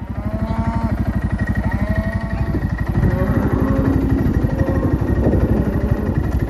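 Farm bike's engine running steadily at low speed while it follows a herd of cattle, with a few drawn-out calls over it in the first three seconds.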